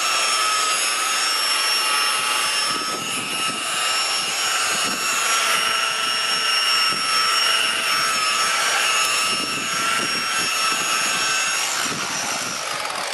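Electric rotary buffer running at speed with a steady high-pitched motor whine while buffing a boat's fiberglass gel coat.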